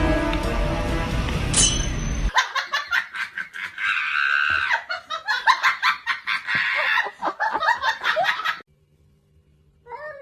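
Background music for about two seconds, then a sudden cut to a person laughing hard in repeated bursts for about six seconds before it stops.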